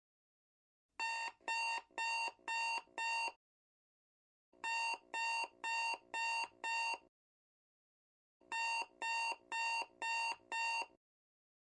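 Countdown timer's alarm beeping: three bursts of five quick electronic beeps, with a pause of about a second between bursts, signalling that the one-minute countdown is up.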